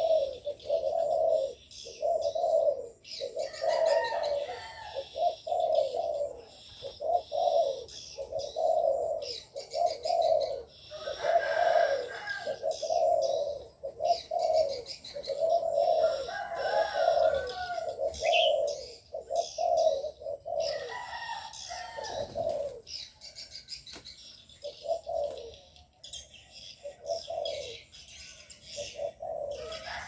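Doves cooing over and over, a low coo about once a second, thinning out in the last third, with small birds chirping high above.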